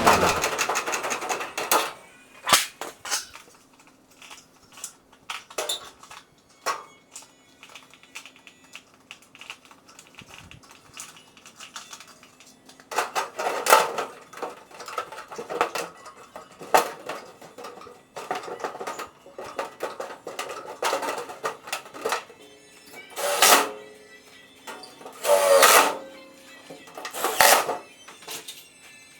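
Irregular clicks, taps and knocks of tools and parts being handled during installation work, with several louder clattering bursts in the second half.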